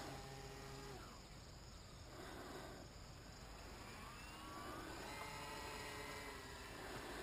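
Faint whine of a foam RC C-47 model's twin electric motors and counter-rotating propellers flying overhead. The steady whine drops away about a second in, rises in pitch again around three to four seconds in, and holds steady near the end.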